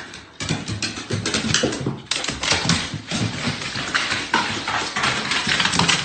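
Fast, irregular clatter of a dog's paws and claws and a person's footsteps on hardwood stairs and floor as they hurry down.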